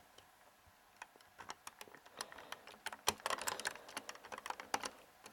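Small plastic clicks and taps, with some handling rustle, as fingers fit the folding roof panels of a 1:18 scale diecast model convertible into place. The clicks are sparse at first and come thicker from about three seconds in.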